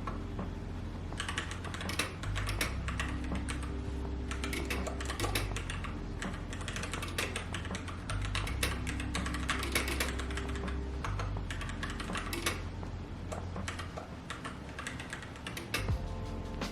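Typing on a keyboard: quick runs of key clicks with brief pauses, continuing steadily, over soft background music.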